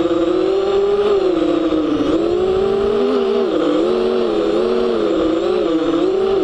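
FPV quadcopter's electric motors whining close to the onboard camera, the pitch rising and falling with throttle changes, with a dip about two seconds in and quicker swings in the second half.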